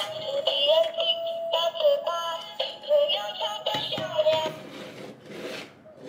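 A thin electronic melody plays and fades out about four and a half seconds in, followed by a few soft scraping noises.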